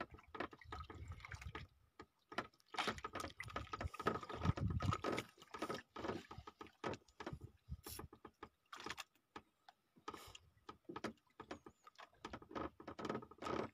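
Irregular knocks, clicks and handling noises on a small fishing boat at sea, with a faint steady high tone underneath.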